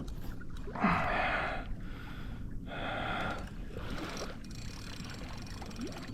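Two hard, breathy exhalations, about a second in and again about three seconds in, from an angler straining against a big fish, over a steady low rumble of water and wind against the hat-mounted microphone.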